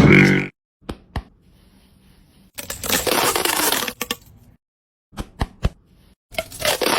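Kitchen food-preparation sounds: a few sharp clicks and taps, and two stretches of crunching noise, each about a second and a half long.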